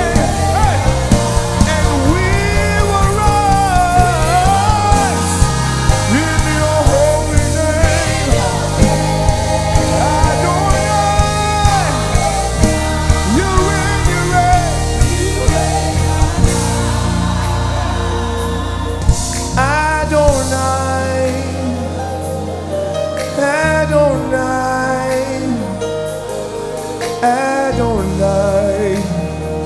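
Live gospel worship band music with singing over a steady drum beat, bass and keys. About two-thirds of the way through, the beat drops away and leaves a softer, sustained backing.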